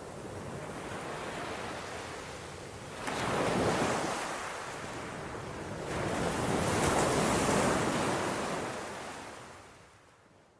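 Sea waves washing in, two swells about three seconds apart, fading out near the end.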